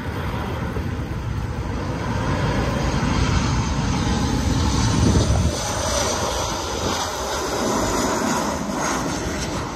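Jet engines of a Southwest Airlines Boeing 737 on low final approach passing close by, a loud steady rumble that swells toward the middle and eases off about five and a half seconds in.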